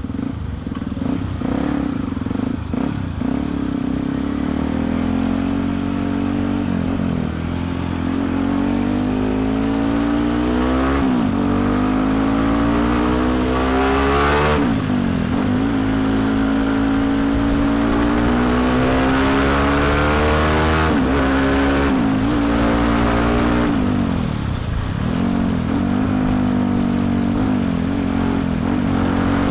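Yamaha WR155R's single-cylinder engine pulling through the gears while riding in traffic: the pitch climbs steadily and falls away sharply at each gear change, several times. Wind on the microphone runs underneath.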